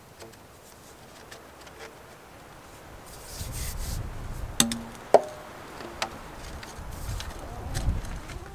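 A long white PVC pipe and its elbow fittings being handled: plastic rubbing and shuffling that grows louder about three seconds in, with two sharp knocks about halfway through and a lighter one a second later.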